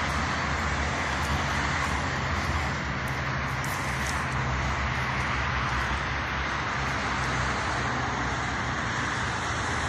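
Steady background road traffic noise, an even rush with a low hum beneath it.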